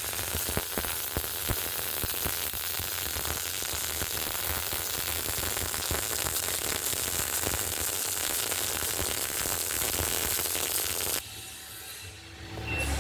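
MIG welding arc crackling and sizzling steadily while a downhill pass is run on a T-joint, cutting off abruptly about eleven seconds in.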